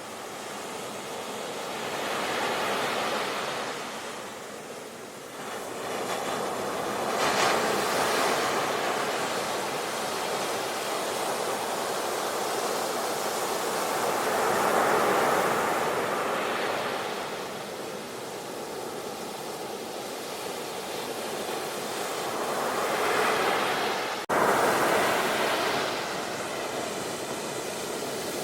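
Sea waves washing onto a shore, a rushing surf that swells and falls back every few seconds, with a sudden brief break in the sound about 24 seconds in.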